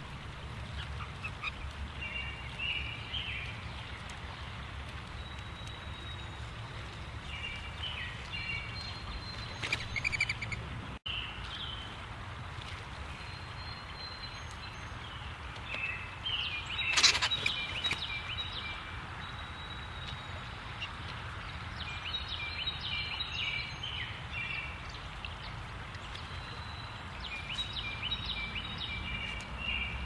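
Wild birds calling at a feeder: short chirps come and go over a steady low outdoor rumble, with one loud, harsh call about halfway through.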